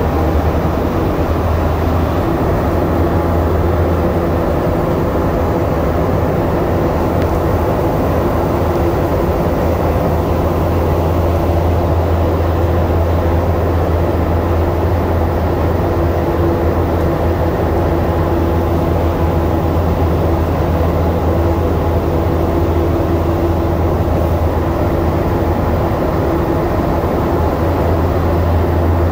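Steady running noise heard from inside a rubber-tyred Montreal Metro Azur car moving through the tunnel: a constant rumble with a strong low hum, and a steady higher tone that comes in about halfway.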